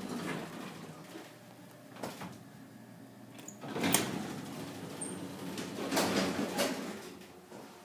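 1950s Long service elevator in operation: a faint steady hum with several clunks and rattles. The sharpest comes about four seconds in and a longer, louder rattle follows around six seconds in.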